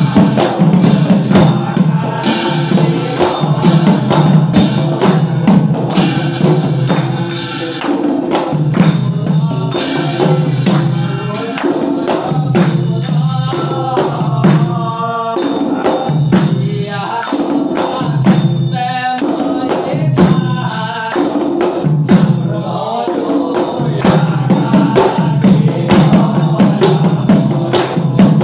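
Negera Naam: pairs of negera kettle drums beaten with sticks in a fast steady rhythm, with brass hand cymbals clashing and a group of men chanting, the voices clearest in the middle.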